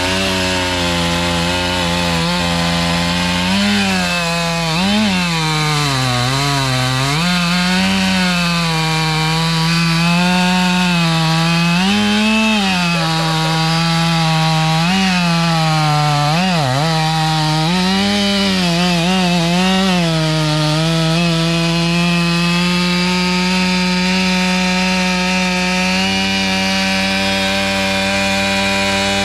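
Stihl MS 500i fuel-injected two-stroke chainsaw with a 36-inch bar running at full throttle, cutting through a large oak trunk. Its engine pitch dips and recovers again and again as the chain loads up in the hardwood, then holds steady for the last several seconds.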